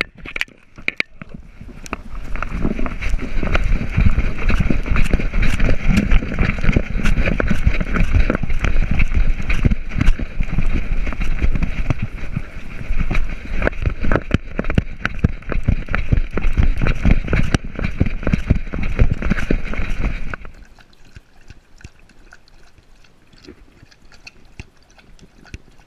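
Harness-mounted GoPro knocking and rubbing as a German Shepherd puppy moves about and climbs steps: a loud, dense clatter of jolts. About twenty seconds in it drops suddenly to a quiet stretch of faint clicks.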